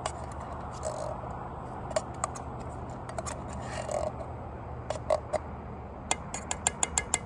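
Metal spoon clinking and scraping against an emptied tin can of chili: scattered sharp clicks, then a quick run of about six ticks near the end. Under it, the steady hiss of a lit canister gas stove heating the pot.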